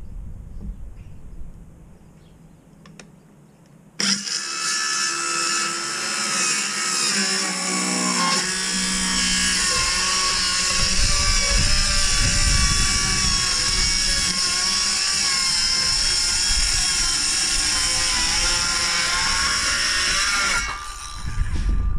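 A circular saw starts suddenly about four seconds in and runs steadily with a high whine as it rip-cuts a sheet of 3/4-inch birch plywood. It stops about a second before the end, and another loud sound follows right after.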